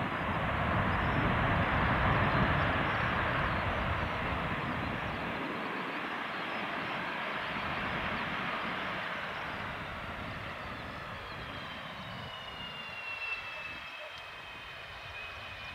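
Antonov An-124's four Progress D-18T turbofans rushing as the freighter rolls out after landing, loudest a couple of seconds in and slowly fading as it slows. In the last few seconds a high turbofan whine comes through, gliding slightly down in pitch.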